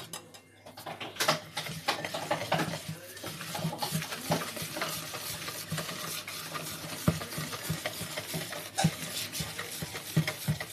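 Wire whisk beating sifted flour into runny cake batter in a plastic bowl: a fast, steady swishing and scraping that starts about a second in, with a few sharper clicks of the wires against the bowl.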